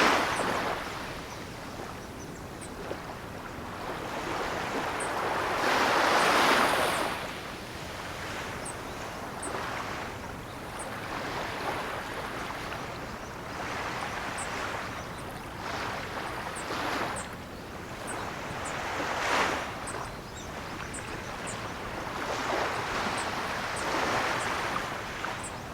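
Ocean waves breaking and washing ashore, a fresh surge swelling and fading every few seconds, the largest about six seconds in.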